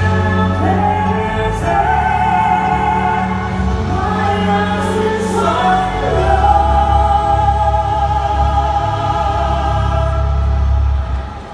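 Orchestra and singers performing a slow ballad: voices hold long, wavering notes over sustained low chords, and the music drops away sharply near the end.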